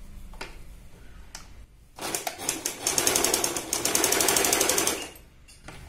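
Usha Stitch Queen electric sewing machine sewing a straight stitch: it starts about two seconds in, runs in a fast, even mechanical clatter for about three seconds, then stops. A few light clicks come before it.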